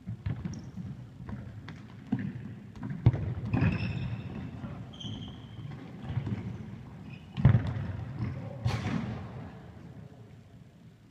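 Football being kicked and thudding about an indoor sports hall, with players' footsteps and a few brief high squeaks, all echoing in the big room. Two kicks stand out loudest, about three seconds in and again at about seven and a half seconds.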